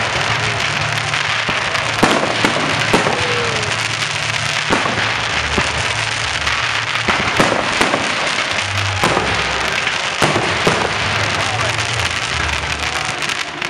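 Aerial fireworks display: a dense, continuous run of crackling and sharp bangs from bursting shells, with a brief whistle about three seconds in. Music plays underneath, its low notes held in long blocks.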